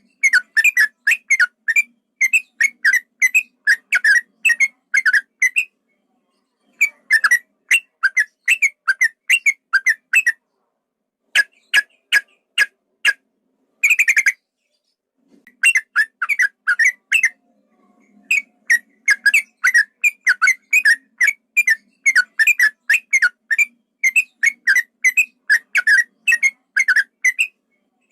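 Yellow-vented bulbul (trucukan) singing a long, rapid run of short whistled notes, about four to five a second. The run comes in stretches of several seconds broken by brief pauses. This is the long rolling "ropel" song of an excited male.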